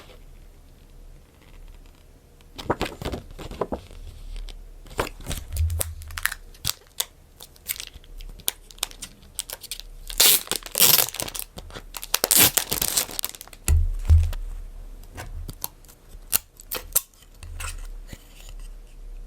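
Packaging being handled and torn open: wrapping crinkling and tearing in scratchy spurts, densest about halfway through, with clicks and a few soft thumps of items being set down.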